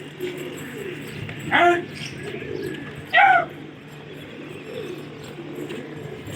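Pigeons cooing and calling around the loft, with two loud, short calls that fall in pitch, about a second and a half apart.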